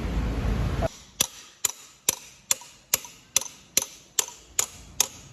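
Hammer tapping a ball bearing into place: sharp metallic taps with a ringing tone, about two and a half a second. Before them a loud steady noise cuts off suddenly about a second in.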